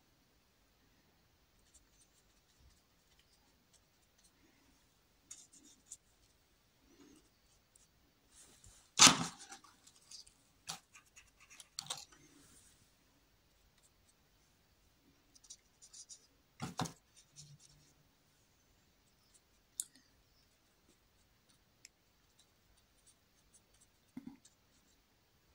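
Faint short strokes of a paintbrush scratching and dabbing acrylic paint onto canvas, with a few sharp knocks, the loudest about nine seconds in.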